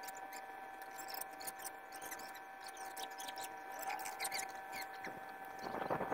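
Paintbrush scratching and tapping on a textured cement wall in small irregular strokes, over a faint steady hum, with a louder scrubbing rustle near the end.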